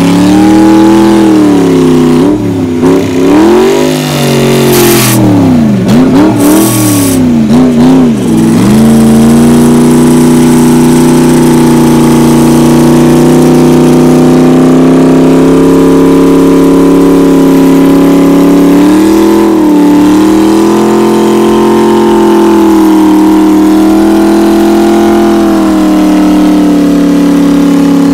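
Off-road competition 4x4's engine revving up and down repeatedly while it winches through deep mud, then held at steady high revs from about nine seconds in.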